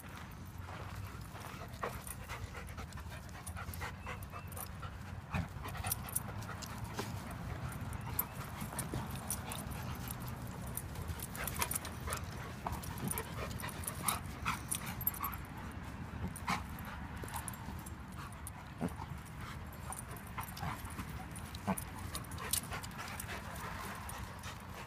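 Two dogs play-fighting: panting and dog vocal noises, with many short scuffs and clicks scattered through.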